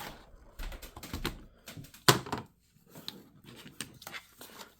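Scattered clicks and light knocks from a model locomotive and its box being handled, the sharpest about two seconds in.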